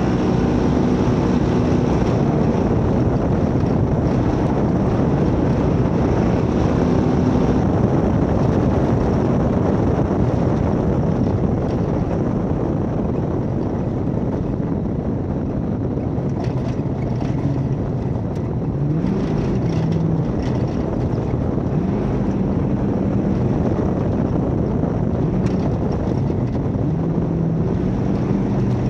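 1972 Ford Bronco race truck's engine running hard at speed under a heavy rush of wind and off-road noise, its revs changing and climbing sharply twice about twenty seconds in.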